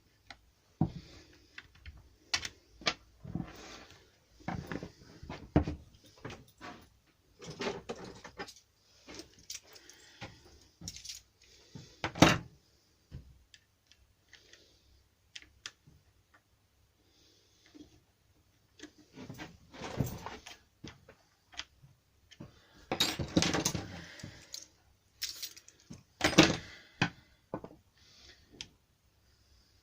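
Hand tools and strimmer parts clicking, knocking and clattering irregularly while the strimmer is taken apart, with a quiet spell about halfway through and sharp knocks near the middle and near the end.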